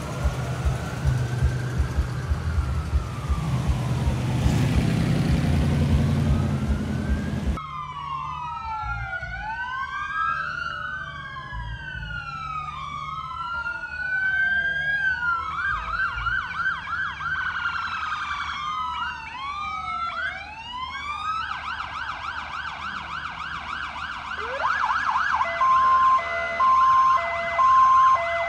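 Emergency-vehicle sirens wailing, several slow rising-and-falling wails overlapping one another. Near the end they change to a fast yelp. During the first few seconds a car engine runs under a fainter single wail, before the sirens take over.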